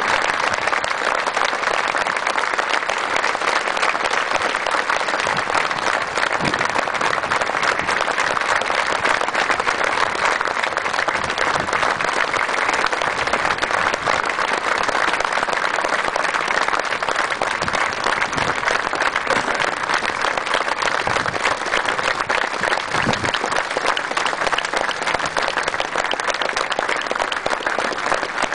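A large crowd applauding: dense, steady clapping that holds at one level without a break.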